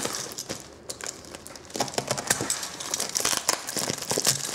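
Plastic bubble-wrap mailer crinkling and rustling as hands pull at its cut end, in quick irregular crackles that grow denser about two seconds in.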